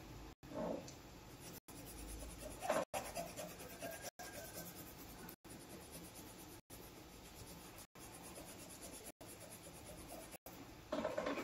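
Colored pencil scratching on paper in strokes of shading, coloring in a drawing. The louder strokes come about half a second in, around three seconds in and near the end, and the sound drops out briefly about every second and a quarter.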